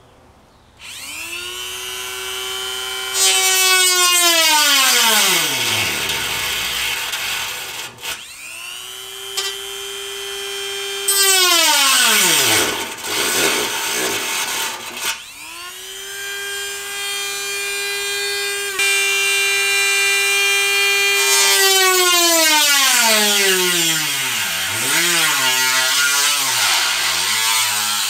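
Corded rotary tool spinning up to a high steady whine and grinding out bolt holes in a car fender's sheet metal, widening them so the snorkel's studs will fit. It winds down in a falling whine and starts again three times. Near the end its whine rises and falls several times in quick succession.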